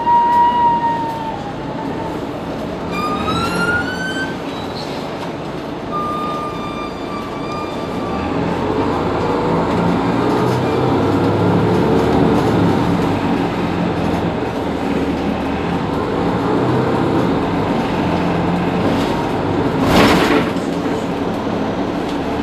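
Mercedes-Benz Citaro G C2 articulated city bus idling while standing, its engine sound swelling and growing louder about eight seconds in. Thin whining tones rise and fall over it in the first several seconds, and a short, loud hiss comes near the end.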